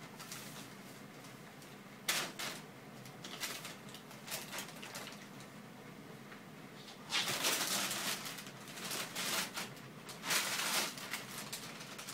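Thin plastic carrier bag rustling and crinkling in irregular bursts as a cat paws at and pushes its head into it, with two longer, louder spells of crinkling in the second half.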